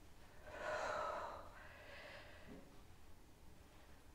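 A woman exhaling audibly with effort on a dumbbell lift, one breath about half a second in lasting about a second, then a fainter breath.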